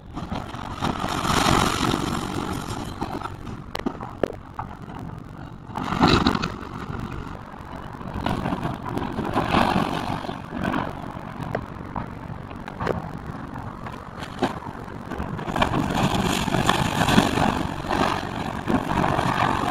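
Excavator demolishing a brick and timber-framed apartment building: the machine's engine running under repeated bursts of breaking, scraping and clattering debris as walls and framing come down, with short knocks between the bursts.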